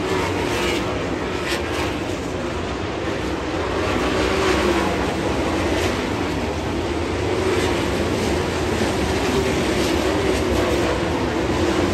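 Winged sprint cars' V8 engines racing flat out around a dirt oval, a steady, loud engine sound that swells as cars pass, loudest about four seconds in and again near the end.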